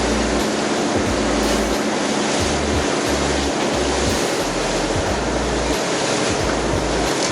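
Steady rushing noise of wind and sea on the microphone aboard a fishing boat, even and unbroken.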